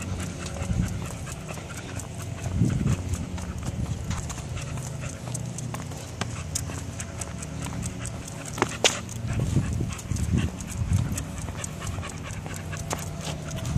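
Footsteps of a person and a pit bull walking on a concrete sidewalk, an irregular run of clicking steps, with the dog panting.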